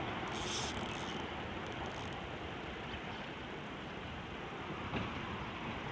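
Steady rushing noise of flowing river water.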